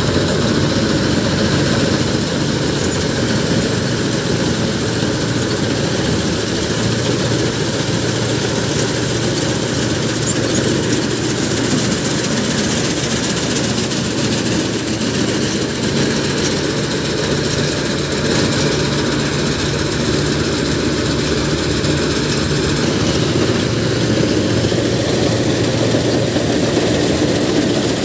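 Sonalika DI-60RX tractor-mounted combine harvester running steadily under load while cutting a standing crop. Its diesel engine, reel, cutter bar and threshing machinery make a constant loud mechanical din.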